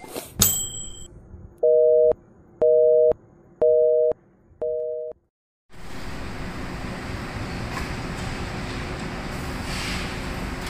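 A telephone busy-signal tone, two notes together beeping four times at about one beep a second, after a couple of brief clicks. Then a short silence and the steady mechanical noise of a cement-bag belt conveyor and plant machinery running, with a faint hum.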